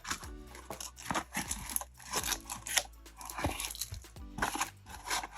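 A trading-card collection box's packaging being torn open and handled, with repeated short tearing and crinkling noises, over quiet background music.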